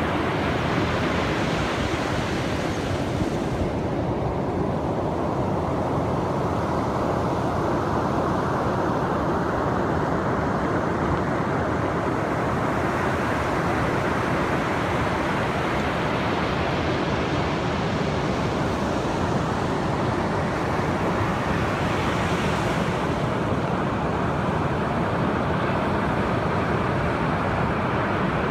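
Ocean surf breaking and washing up the beach: a steady roar, with a brighter hiss swelling near the start and again about two-thirds of the way through as waves break.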